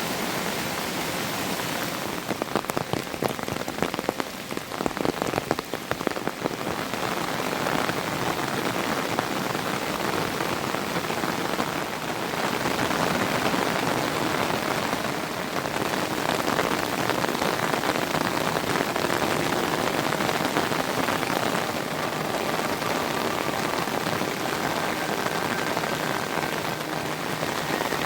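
Heavy monsoon rain falling steadily on surfaces, a dense hiss. Early on, for a few seconds, close individual drops strike sharply and crackle over the downpour.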